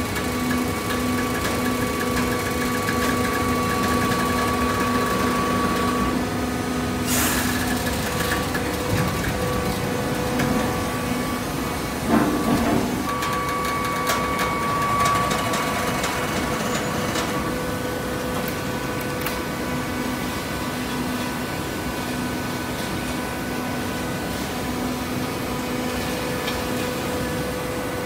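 Automatic horizontal hydraulic baler running: a steady machine hum and whine, with a brief sharp noise about seven seconds in and a louder clunk around twelve seconds in.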